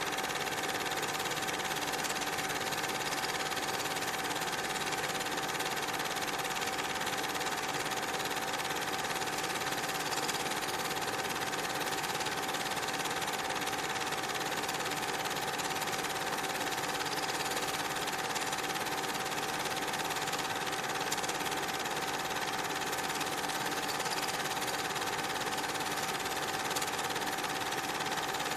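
Cine film projector running: a steady mechanical whirring clatter with a constant whine, unchanged throughout.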